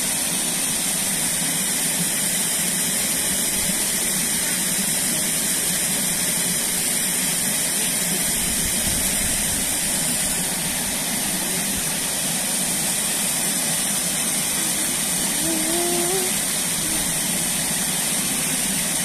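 Stream water rushing over rocks in small rapids: a steady, even hiss of flowing water.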